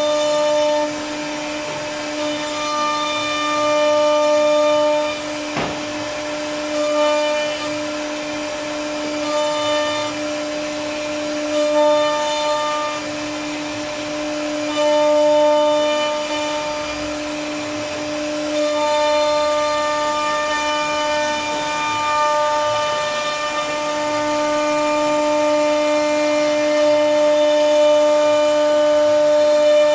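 CNC router spindle whining at a steady high pitch while its bit cuts grooves into a wooden panel. The higher overtones swell and fade every second or two as the cut loads and unloads the bit, with a sharp click about six seconds in.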